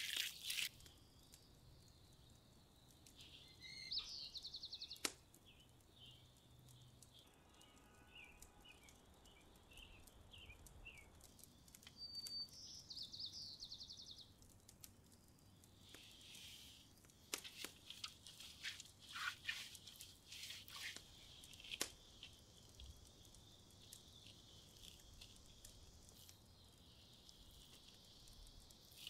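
Quiet outdoor ambience with small birds chirping and two short trills, one about four seconds in and one near the middle. Scattered light clicks and soft handling noises come from food preparation.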